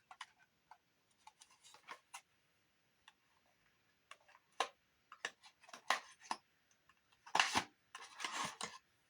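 A small cardboard product box being opened and its contents handled: scattered light clicks and taps, then a louder rustle of packaging about seven seconds in.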